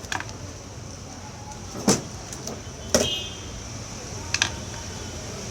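Four sharp taps and clicks from objects being handled on a work surface, two of them louder knocks a second apart, over a steady background hiss.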